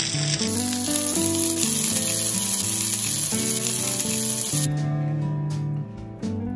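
Yellowtail kingfish fillets sizzling in olive oil on a hot flat griddle plate, over background acoustic guitar music. The sizzle stops about two-thirds of the way through, leaving the strummed guitar.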